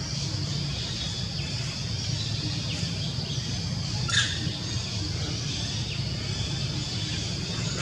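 Outdoor forest ambience: a steady low hum and a steady high hiss, with a few short falling bird chirps. One louder call, falling in pitch, stands out about four seconds in.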